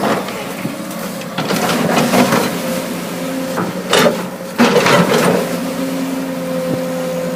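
Caterpillar earthmover's diesel engine running steadily, with a few short, rough bursts of noise as it digs.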